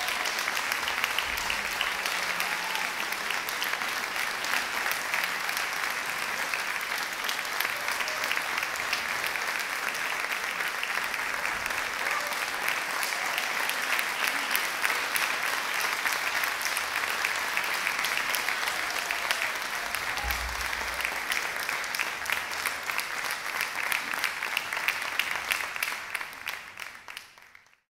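Audience applause: dense, steady clapping from a full hall, fading out near the end.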